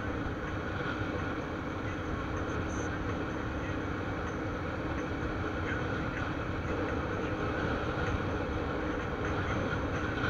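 Motorcycle engine running steadily while riding along at cruising speed, mixed with constant wind and road noise on the bike-mounted microphone, with a steady hum throughout.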